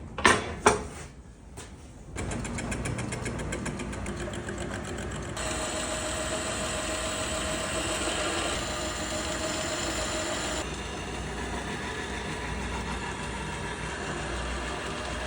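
A Logan metal lathe running steadily after a few knocks, with a fine even mechanical rhythm. About five seconds in, a higher whine joins it for several seconds and then drops away.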